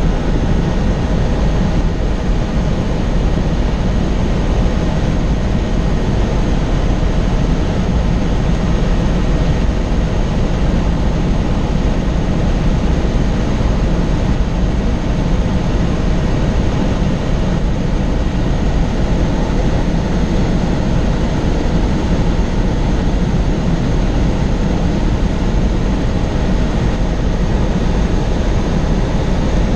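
Helicopter in steady cruise flight, heard from on board: rotor and engine noise as an even, loud drone with no change.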